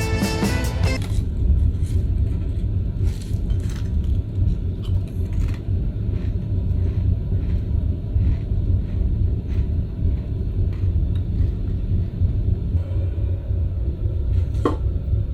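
Steady low rumble of a large ferry's engines and hull underway, with faint scattered clicks.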